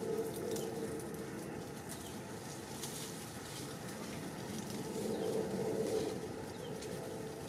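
A dove cooing in the background of woodland ambience, its low hooting swelling about five seconds in, with faint high chirps and ticks throughout.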